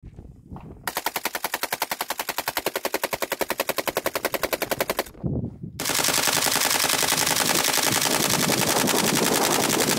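AK-12 5.45 mm assault rifle firing on full auto: a fast, even string of shots lasting about four seconds, a short pause, then a second long burst of about four seconds.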